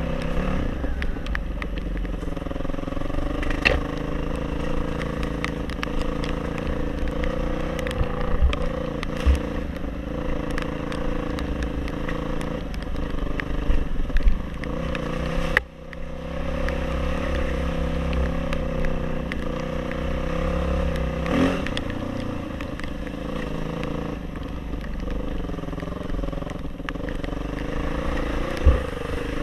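Off-road motorcycle engine running steadily under way, with scattered short knocks and rattles. The sound drops out briefly about sixteen seconds in, and the engine note rises and falls around twenty-one seconds.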